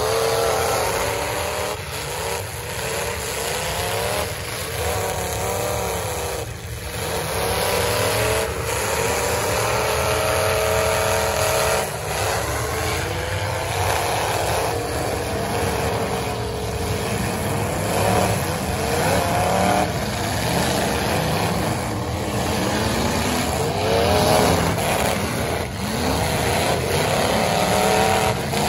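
Several full-size demolition derby cars' engines revving up and down at once, with sharp knocks now and then as the cars ram each other.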